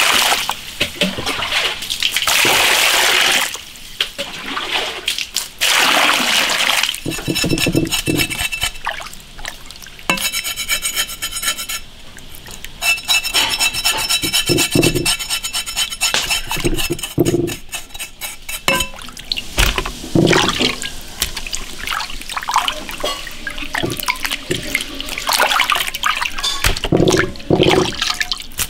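Water pouring and splashing over raw pork being rinsed in a basin, then a cleaver blade scraping over and over across pork belly skin with a fine, even rasp. Near the end come scattered knocks and handling noises.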